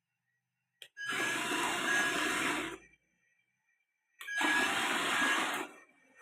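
Electric motor and gears of a Yigong 258-E RC mining dump truck whirring in two bursts, one of about two seconds and one of about a second and a half, each starting and stopping abruptly.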